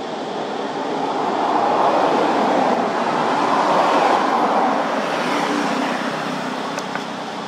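A loud, steady rushing noise that swells over the first few seconds and then slowly eases off.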